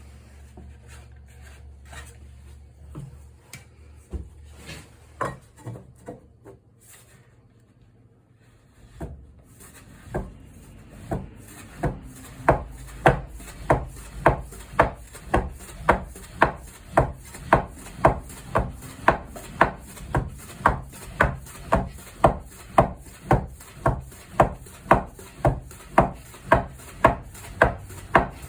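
Soba knife chopping through folded buckwheat dough onto a wooden board: a few irregular knocks at first, then from about a third of the way in a steady chop about twice a second.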